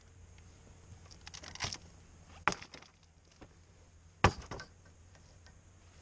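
A few sharp knocks and clatters as a mounted tire on its rim is handled and stood upright on a step stool, the loudest a little past four seconds in, over a faint steady low hum.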